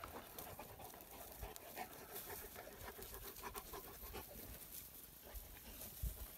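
Greater Swiss Mountain Dog panting faintly close by, with a few light crackles of dry stubble.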